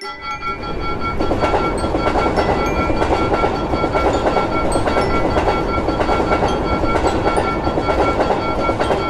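A passenger train passing at speed, its wheels clattering over the rail joints in a dense rumble. The rumble swells within the first second, holds, and dies away right at the end as the train clears the crossing. A steady ringing tone continues over it, typical of a level crossing's warning bell.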